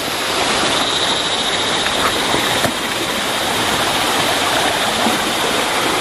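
Steady rushing of a mountain stream and the waterfall just ahead.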